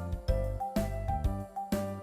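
Cheerful children's background music with a steady beat, a bouncing bass and a bright plucked melody.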